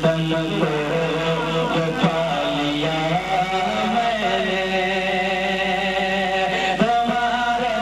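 A man singing a manqabat, an Urdu devotional Sufi poem, in long held, wavering melodic lines through a stage sound system.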